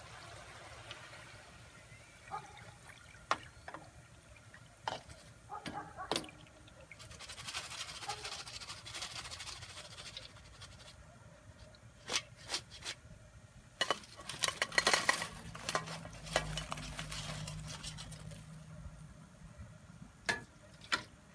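Fry basket of french fries being lifted out of hot frying oil: the oil sizzling and dripping back into the pot, the metal basket knocking against the pot a few times, then a loud burst of clattering about two-thirds of the way in as the fries are tipped into a glass bowl.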